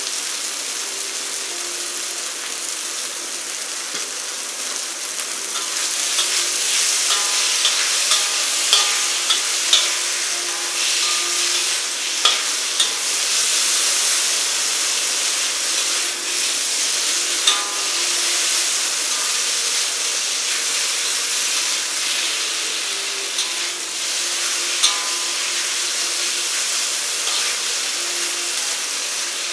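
Glass noodles sizzling in a hot wok on a gas stove, stirred with a metal spatula that scrapes and clicks against the wok. The sizzle grows louder about six seconds in, with the sharpest spatula knocks around the middle and once more near the end.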